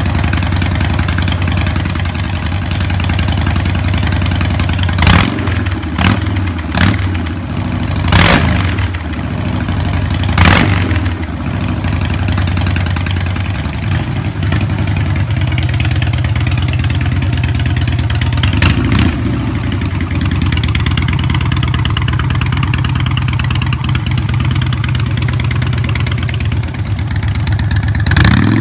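Harley-Davidson Softail Blackline FXS V-twin through Freedom Performance Declaration Turnouts exhaust, idling with a deep, steady lope. It is blipped several times in quick succession about five to eleven seconds in and once more near nineteen seconds, and the revs rise again at the very end.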